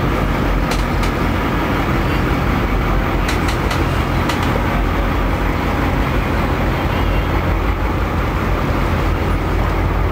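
Boat engine running: a steady low drone under a broad rushing noise, with a few light clicks about a second in and again around three to four seconds in.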